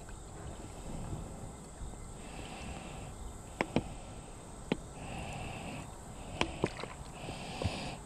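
River water being filtered through a squeeze-type water filter on a plastic pop bottle into a plastic water bottle: the water runs in short spurts about every two seconds, with a few sharp crackles and clicks of the squeezed plastic bottle in the second half.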